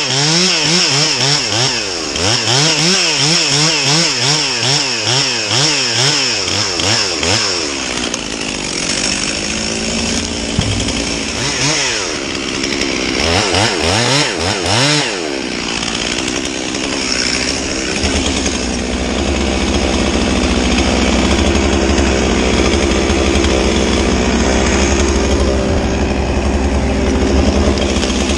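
Gas chainsaw cutting through a pine trunk, its engine pitch rising and falling quickly under load for the first several seconds and again about halfway through. For the latter part an engine runs steadily with a low hum.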